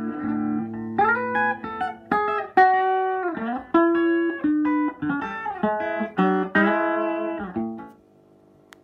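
Electric guitar played through an early-1960s Davoli D531T valve amp into a Super Reverb speaker cabinet: a picked line of distinct notes that stops about 8 seconds in, leaving the amp's faint steady hum.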